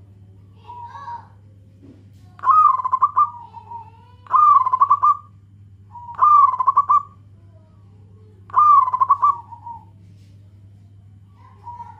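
Zebra dove (perkutut) cooing: four loud rolling coo phrases about two seconds apart, each a quick stutter of notes ending in a drawn-out lower coo, with softer coos near the start and near the end.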